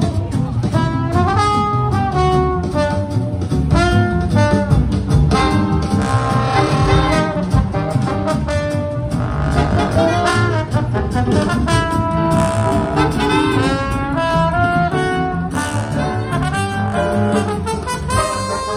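Jazzy instrumental music with brass and a steady beat, played over a stage PA for a dance routine.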